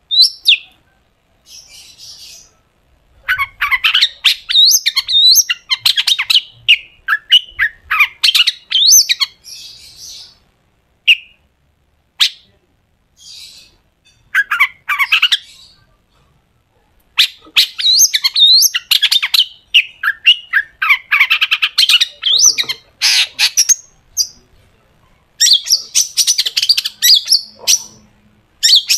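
Long-tailed shrike (cendet) singing in bursts of rapid, harsh chattering and sharp whistled notes, with short pauses between bursts.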